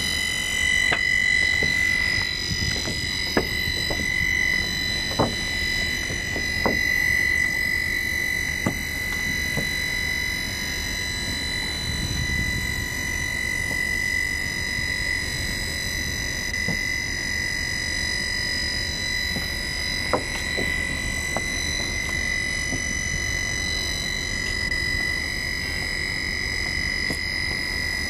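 Handheld roof seam welding machine running as it drives itself along a standing seam of a metal roof: a steady high-pitched whine from its motor, with scattered sharp ticks.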